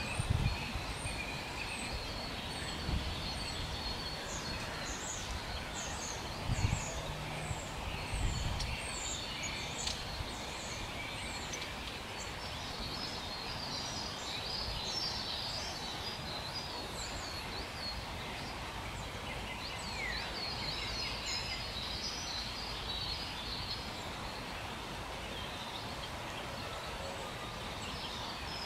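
Several small wild birds singing and calling: many short, high chirps and song phrases, denser in the second half, over a steady background hiss. A few low bumps in the first ten seconds.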